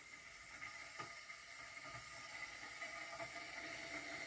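Faint steady high hiss of open-air ambience, with a faint click about a second in.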